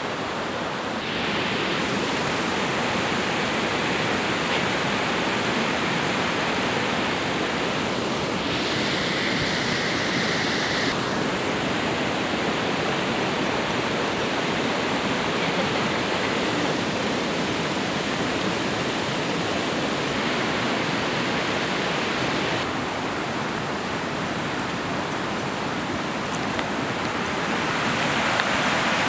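River water flowing: a steady rush of noise whose tone shifts abruptly a few times.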